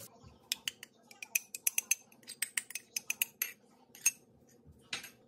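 A spoon clinking and scraping against a small bowl as thick seasoning sauce is scraped out into a pot: a quick run of sharp clicks, about four a second, then two more single clicks near the end.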